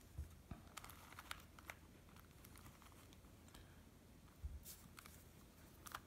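Faint, irregular plastic clicks and rustles of a Rubik's Cube's faces being turned by hand, with a slightly louder cluster about four and a half seconds in.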